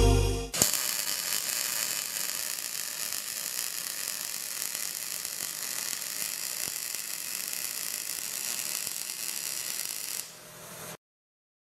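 MIG welding arc on 2.1 mm stainless steel (6.0 m/min wire feed, 17.5 V) crackling steadily: it strikes with a sharp snap about half a second in and stops about ten seconds in.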